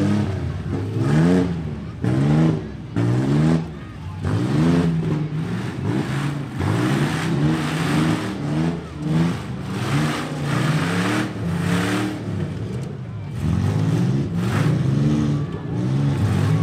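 Demolition-derby pickup truck engines revving hard over and over, the pitch climbing and dropping a dozen or so times as the trucks push and ram each other.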